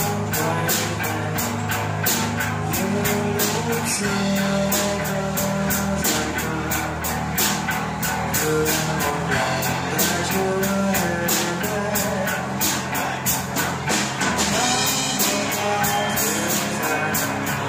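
Live band playing: guitar over a drum kit with a steady beat.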